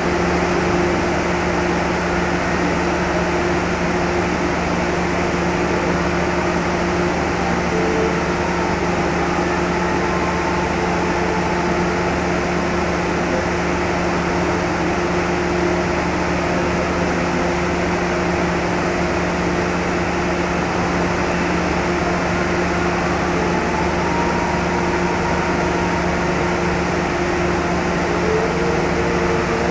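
Idling diesel locomotive running steadily: a constant low hum with a higher tone above it, over a rushing mechanical noise.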